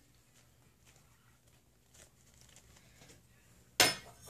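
Faint handling rustles, then near the end a metal spoon strikes crockery once with a sharp clink and a short ring.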